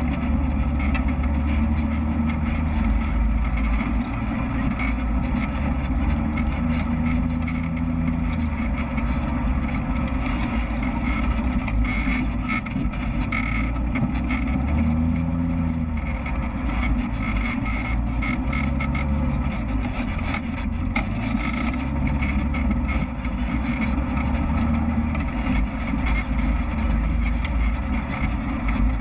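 Side-by-side UTV's engine running steadily while driving, its pitch rising and falling a little with the throttle.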